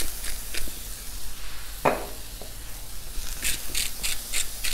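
A hand-twisted pepper grinder cracking peppercorns in short crunches, a couple just after the start and a quicker run of about six near the end. Under it, vegetables sizzle steadily on a hot flat-top griddle.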